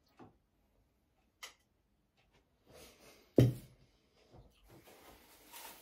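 Kitchen handling sounds: two light clicks, then a single loud knock about three and a half seconds in, as of a dish or object set down hard on the counter, followed by soft rustling near the end.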